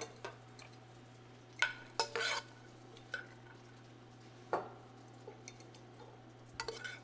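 Wooden and metal spoons scraping a sauté pan and clinking on a ceramic plate as risotto and sautéed vegetables are spooned out: a handful of short, scattered scrapes and clinks over a steady low hum.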